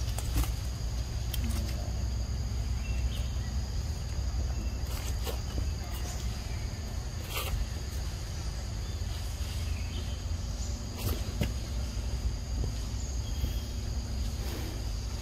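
Forest ambience: a steady high insect drone over a constant low rumble, with scattered short clicks and rustles scattered through it.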